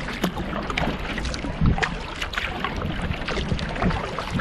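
Water splashing and dripping from a double-bladed kayak paddle working a solo canoe, many small irregular splashes, over a steady low rumble of wind on the microphone.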